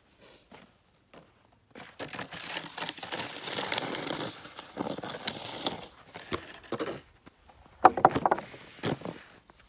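Plastic snow shovel scraping over packed snow for a few seconds, then separate crunching footsteps in the snow, the loudest crunch a little before eight seconds in.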